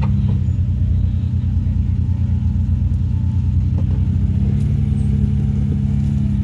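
Off-road 4x4's engine running at low speed, a steady low drone with a fast, even pulsing; its pitch steps up slightly about four and a half seconds in.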